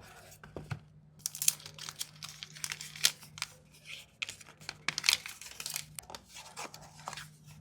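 Smartphone retail packaging being opened by hand: plastic wrap and cardboard crinkling and tearing, with many irregular sharp clicks and taps, over a faint steady low hum.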